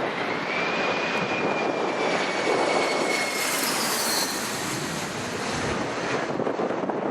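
Jet airliner passing low overhead: loud engine noise with a high whine that drops slightly in pitch as it goes by.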